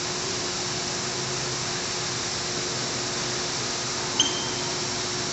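Water pouring and splashing steadily from spouts into a shallow pool, with a faint steady hum underneath. A brief sharp sound stands out about four seconds in.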